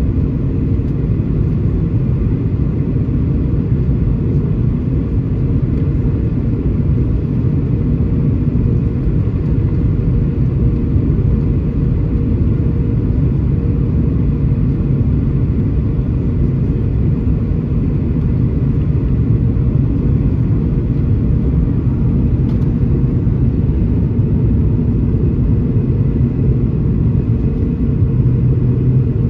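Steady low rumble inside the cabin of a Boeing 737-900ER, heard from a window seat over the wing on the descent into Newark: its CFM56-7B engines and the airflow over the fuselage, with a faint steady hum on top.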